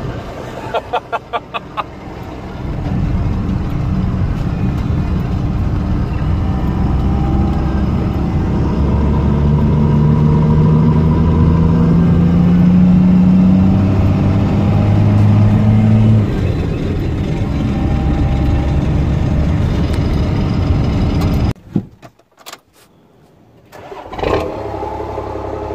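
Pickup truck engine pulling a load on the road: its pitch climbs steadily as it accelerates, drops when it shifts gear, then runs steadily. A short run of quick clicks comes about a second in, and the sound cuts out briefly near the end before a steady engine sound returns.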